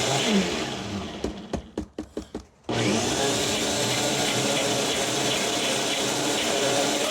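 Countertop blender running on frozen mango chunks. It winds down about a second in, with a few clicks and knocks while it is stopped, then starts again suddenly near three seconds and runs steadily.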